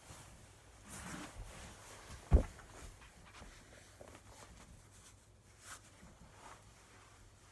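Rustling of a cloth bandage sling as it is pulled off, then one sharp dull thump about two seconds in, followed by a few faint knocks and shuffling movement.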